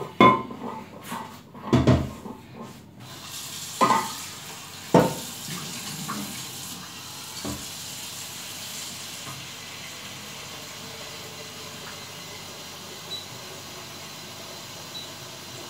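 Kitchen clatter of a metal pot and utensils, with several sharp knocks in the first five seconds, then a steady hiss of running water.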